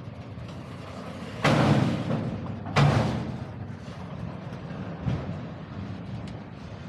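Freight train cars rolling slowly past, with a steady low rumble and loud metallic clanks: two heavy ones about a second and a half in and just over a second later, and a lighter one a few seconds on.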